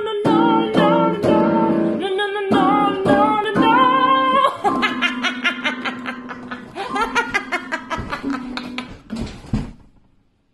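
A woman singing a pop song with instrumental accompaniment. Midway the singing gives way to a run of quick repeated chords over a held low note, and the music fades out just before the end.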